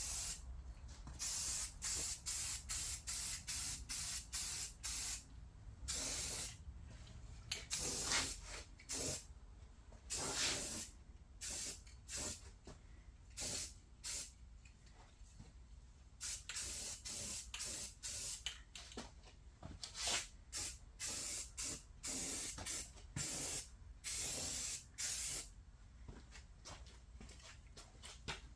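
Spray paint hissing in many short bursts, a few of them longer, with brief pauses between: quick passes laying down a light first coat of gloss safety red.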